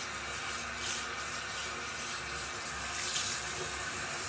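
Bathroom sink tap running, a steady rush of water into the basin, turned on to rinse face cleanser off.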